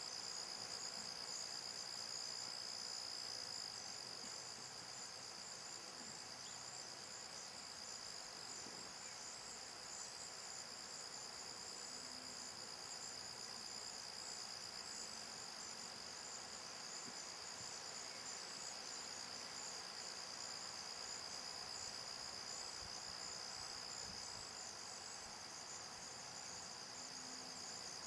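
Steady, unbroken high-pitched chorus of insects, crickets, trilling in the grass.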